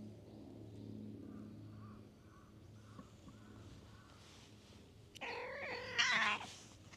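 Stray cat meowing: one loud, drawn-out meow with a wavering pitch, about a second long, starting about five seconds in.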